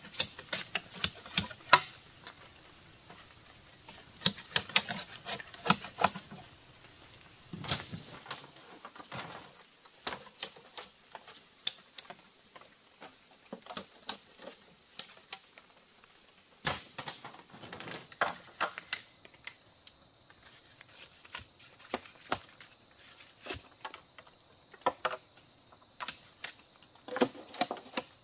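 Irregular runs of sharp, light clicks and knocks, several a second in clusters with short pauses between them.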